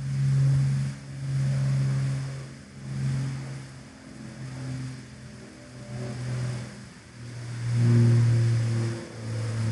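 A piling rig's engine runs and revs in repeated surges, each about a second long, as it drives sheet piles with a vibratory driver. The loudest surge comes near the end.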